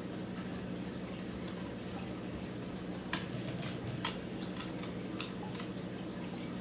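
Light clicks and taps of a kitten's paws and face against a glass jar lying on a wooden floor, with two sharper taps about three and four seconds in, over a steady low hum.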